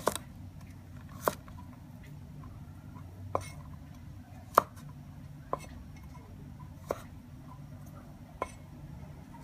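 Steel cleaver chopping through carrot onto a wooden chopping board. About seven sharp knocks come at uneven gaps of one to two seconds.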